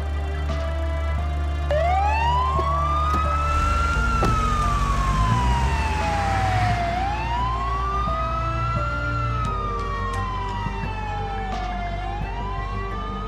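Emergency vehicle siren wailing, starting about two seconds in: each cycle rises quickly in pitch and then falls slowly, repeating about every five seconds, about two and a half times. Under it are sustained background music notes and a low drone.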